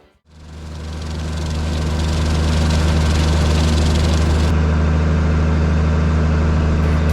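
A large farm machine's engine running steadily, fading in over the first couple of seconds and then holding an even low hum. About halfway through, the hiss above it drops away.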